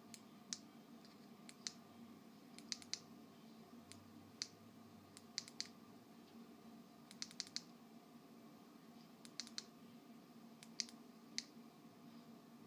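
Small plastic button clicks, singly and in quick runs of two or three, irregularly spaced, as the LED kit's remote control switches the lights' colour; a faint steady hum underneath.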